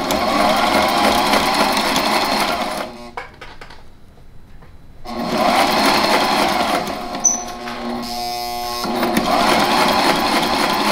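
Sewing machine stitching a seam through heavy fabric: it runs steadily for a few seconds, stops for about two seconds, then runs again, its tone changing briefly about eight seconds in.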